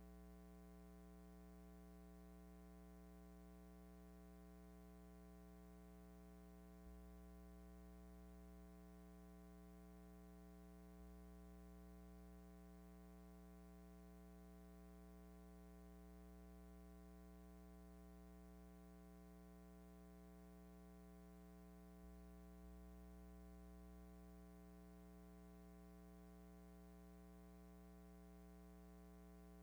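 Near silence: only a faint, steady hum under the silent film.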